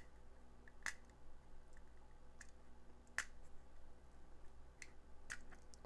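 Scattered small clicks and taps from a black plastic flashlight housing being handled and picked at with fingernails, about six sharp clicks spread over a few seconds.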